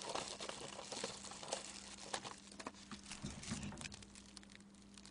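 Faint, scattered crinkles and light clicks of a plastic food glove and chopsticks handling pieces of boneless fried chicken, with eating sounds as a piece is bitten. The sounds thin out and grow quieter toward the end.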